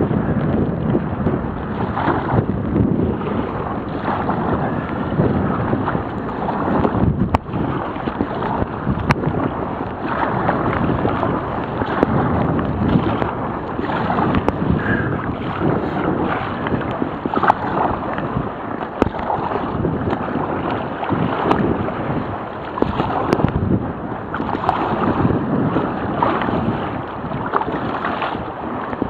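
Gale-force wind buffeting the microphone, surging and easing in irregular gusts, mixed with sea water splashing around a sea kayak in rough, heavy swell.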